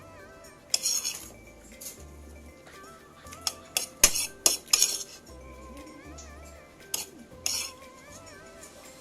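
Cutlery clinking and scraping against a plate while eating: a handful of sharp clinks, bunched around the middle, and two short scrapes, over soft background music.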